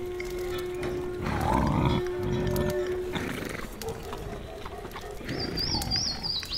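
Layered medieval-village sound effects playing together: a long held tone through the first half, loud farm-animal calls from about one and a half to three seconds in, and bird chirping near the end.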